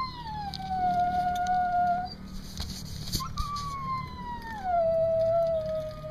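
A trapped dog whining in distress: two long, high cries, each sliding down in pitch and then held, the second one longer.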